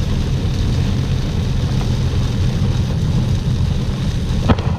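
Heavy rain on a moving car heard from inside the cabin: a steady, loud rush of rain and wet-road noise, with a single click near the end.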